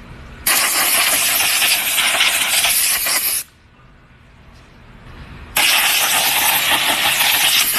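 Two loud stretches of even hissing noise, the first about three seconds long and the second about two, each starting and stopping abruptly.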